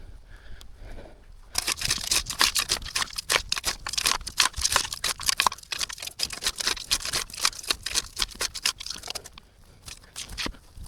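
Rapid run of crunches and scrapes from a shovel digging out grass and rocky dirt. It starts about a second and a half in and dies away near the end.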